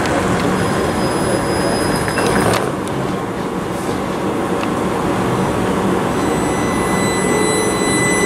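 Southern Class 377 Electrostar electric train at the platform, its running noise steady, then starting to pull away near the end with a high, steady electric traction whine setting in about six and a half seconds in.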